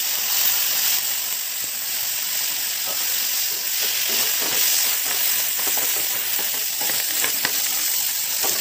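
Paneer cubes sizzling as they fry in oil and butter in a kadai, a steady hiss, with light taps and scrapes of a wooden spatula turning them from about three seconds in.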